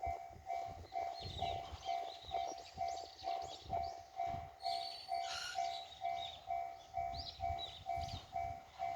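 Japanese railway level-crossing warning bell ringing in an even, rapid beat, about two electronic dings a second, with birds chirping over it.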